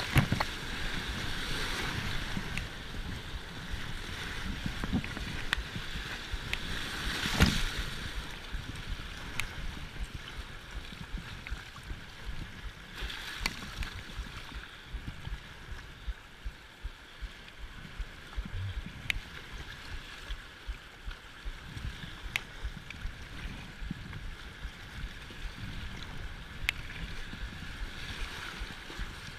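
Whitewater rushing and wind buffeting the microphone on an inflatable kayak, with scattered sharp clicks and splashes and one louder knock about seven and a half seconds in.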